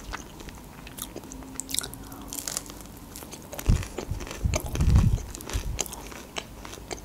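Close-miked biting and chewing of a crunchy breaded chicken strip: crisp crackles of the coating, with heavier chewing loudest about four to five seconds in.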